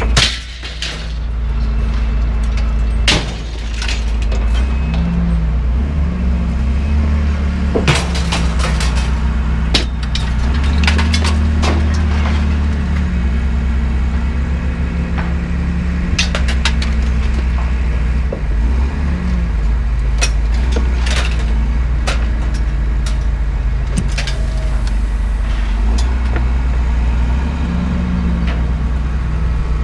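Light scrap iron being thrown off a trailer onto a scrap pile, clanging and crashing at irregular intervals, over the steady drone of an engine running throughout, its pitch shifting now and then.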